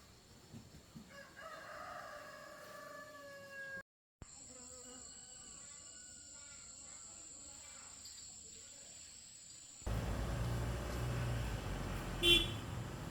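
A rooster crows once, a single long call of about two seconds. After a short dropout there is a faint steady high whine. Then, about ten seconds in, a loud low engine rumble sets in suddenly, with a brief sharp sound near the end.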